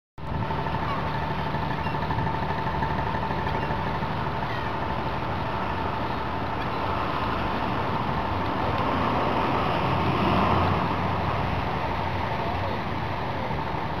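Harbour ambience: an engine running steadily with a low hum, and seagulls calling faintly now and then. The hum swells for a moment about ten seconds in.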